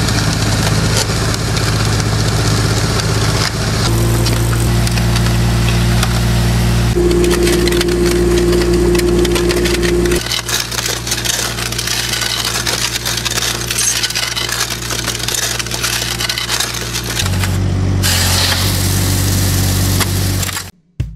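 Compact loader's engine running with its hydraulic concrete mixing bucket turning, the dry mix and concrete rattling and scraping inside the drum. The engine's steady hum shifts in pitch a few times, and in the second half the gritty churning is louder than the engine.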